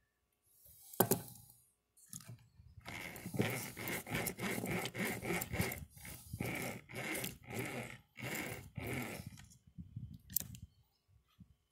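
Steel snare cable being drawn back and forth against a nail in a wooden table, giving a run of rasping, scraping strokes at about two a second after a single scrape about a second in. This is 'loading' the snare: bending the cable so the loop closes fast and stays round.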